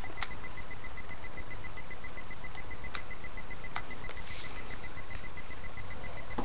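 Steady hiss and low hum of a webcam microphone, with a few faint clicks and brief rustles of comic books being handled.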